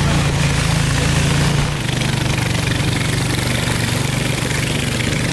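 Engine of a motorized wooden river boat running steadily, a little quieter from about two seconds in, with water rushing past the hull.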